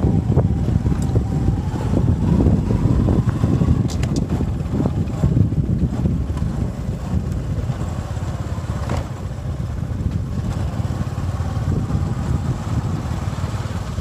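Small motorcycle riding along a dirt track: its engine runs steadily under a heavy, low, rumbling noise, with a few brief knocks.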